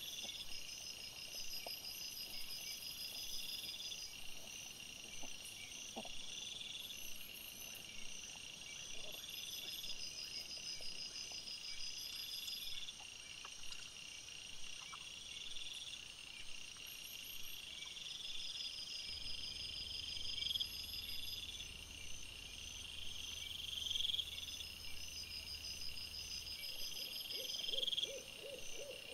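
Night-time chorus of singing insects: a steady high trill with chirps repeating about every two seconds. Near the end a lower, evenly pulsing call sets in.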